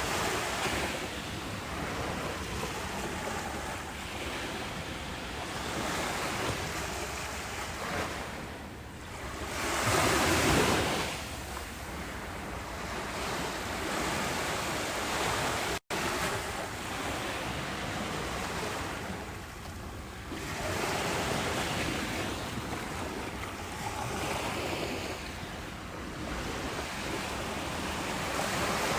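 Ocean waves breaking and washing up a beach, swelling and ebbing every few seconds, the biggest wave about a third of the way in. The sound drops out for an instant around the middle.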